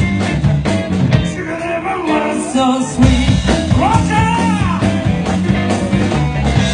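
Blues trio playing live: electric guitar, electric bass and drum kit.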